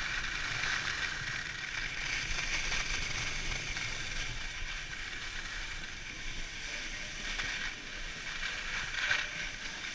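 Skis sliding and carving over packed snow: a steady hiss and scrape, with a sharper scrape about nine seconds in.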